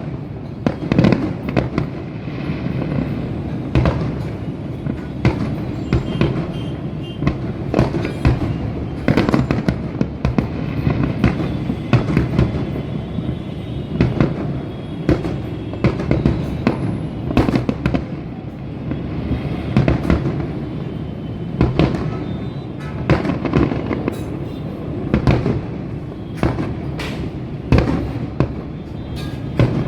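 Diwali aerial shell fireworks going off: a rapid, irregular series of sharp bangs, several every few seconds, over a continuous din of more distant bursts and crackling.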